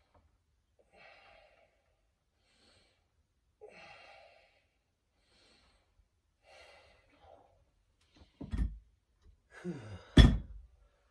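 Heavy, rhythmic breathing through repetitions on an X3 resistance-band bar, a hard breath about every second and a half. Near the end come two sharp, loud knocks, the loudest sounds, as the bar is brought down to the ground plate, with a strained breath between them.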